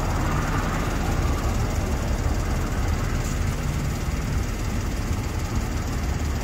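Steady road traffic noise from cars passing on a street, with a constant low rumble.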